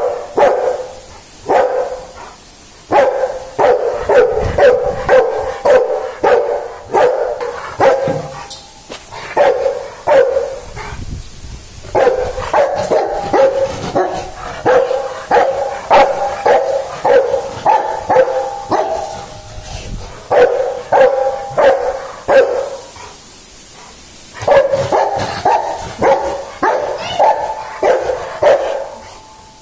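Rottweiler barking over and over in quick runs, several barks a second, broken by short pauses.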